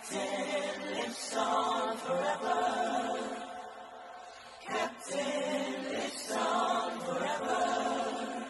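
A choir sings a slow chant in the Benin (Edo) language, with several voices together in long held phrases of about four to five seconds each.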